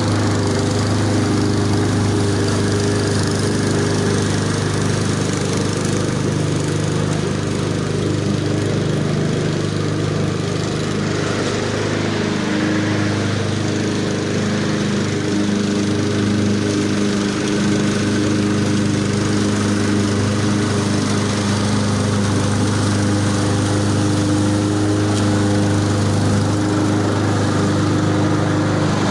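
Honda HRX217VKA walk-behind mower running steadily under load while cutting grass, set to full mulch with the rear door shut.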